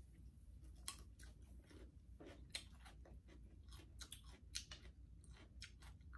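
A person chewing food, faint, with irregular short wet clicks.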